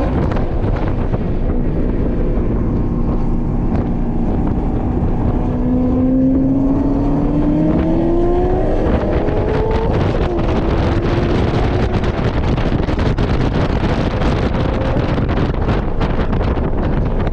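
Heavy wind noise on the microphone over a Porsche 718 Cayman's turbocharged flat-four engine accelerating at track speed, its pitch rising steadily and then dropping sharply at an upshift about ten seconds in.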